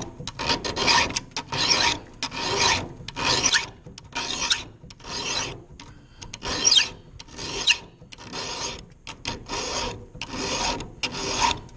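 Round chainsaw file rasping across a saw chain cutter by hand, in about a dozen back-and-forth strokes a little more than one a second. The file is cutting out the cutter's gullet before the top plate is sharpened.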